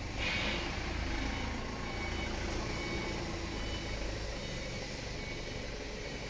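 Truck engine running with a steady low rumble while a reversing alarm gives short, repeated beeps. There is a brief hiss near the start.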